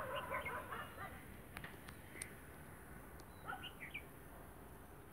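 Birds calling in short chirping bursts, one group at the start and another about three and a half seconds in, with a few faint clicks between them.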